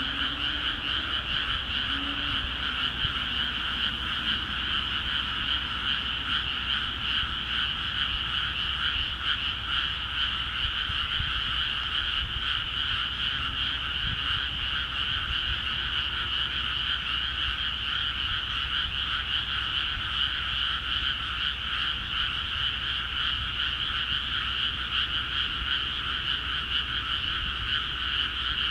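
Dense, unbroken chorus of many frogs calling in flooded rice paddies.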